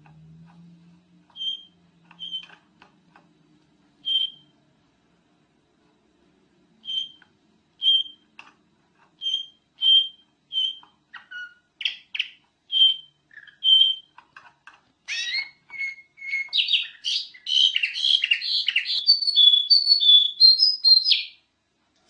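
Kutilang emas (black-crested bulbul) singing: short, clear single notes spaced about a second apart, then in the last third a louder, fast run of varied warbling notes that stops abruptly shortly before the end.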